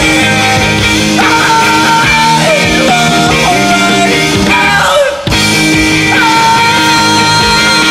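Loud rock song with a sung vocal over guitar and drums. The music drops out for a split second about five seconds in.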